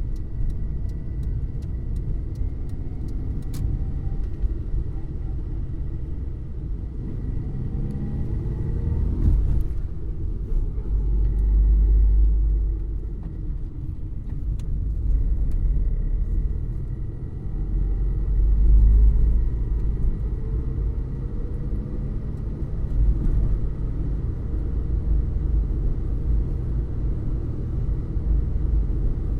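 Ford Fiesta driving, its engine rising in pitch as it accelerates, twice, under a heavy low road rumble that swells loudest about twelve and nineteen seconds in. A few light ticks sound in the first few seconds.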